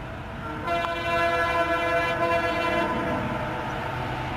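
Dhaka Metro Rail train's horn: one steady, several-toned blast starting about a second in, lasting roughly two seconds and then fading, over steady background noise.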